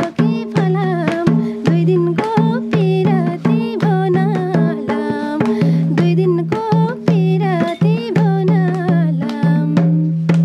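Nepali folk music: a madal hand drum beating a quick, even rhythm under a bending, wordless melody line. It stops abruptly at the end.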